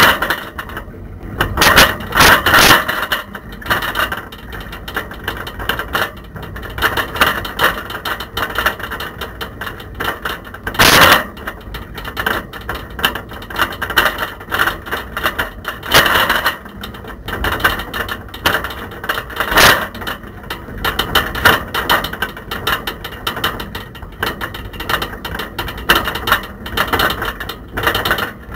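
Camera rattling and clattering loose in a bicycle's front basket as the bike rolls over a rough, potholed road: a constant run of irregular knocks with louder jolts every few seconds.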